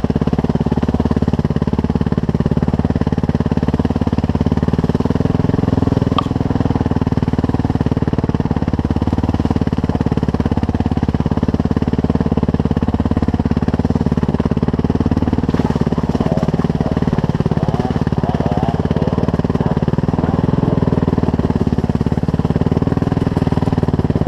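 Suzuki RM-Z450 dirt bike's single-cylinder four-stroke engine running at a fairly steady pitch.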